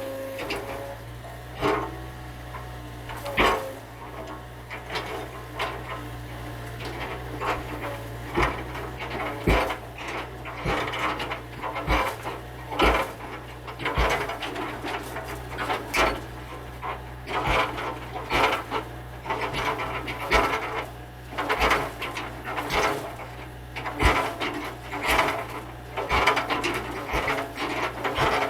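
Mini excavator engine running steadily while wood and debris crack, scrape and knock repeatedly as a structure is torn apart.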